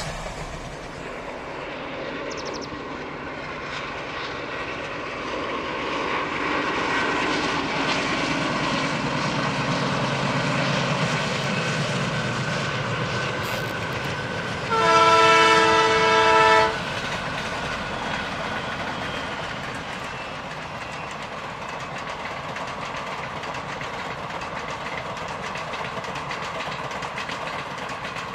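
Indian Railways diesel locomotives working a passenger train: a low engine rumble builds as the train approaches. About fifteen seconds in comes one loud, steady, two-second horn blast, then the coaches roll past with steady wheel and rail noise.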